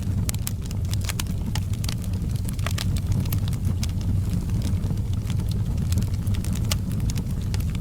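Wood fire burning in a fireplace, crackling with frequent sharp, irregular pops over a steady low rumble of the flames.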